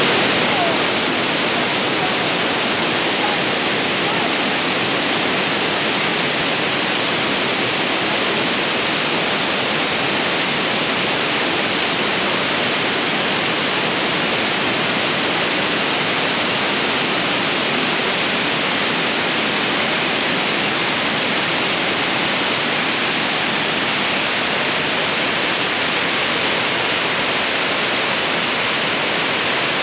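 Athabasca Falls, a large waterfall on the Athabasca River: a loud, steady rush of heavy whitewater pouring over the rock lip and churning in the gorge below.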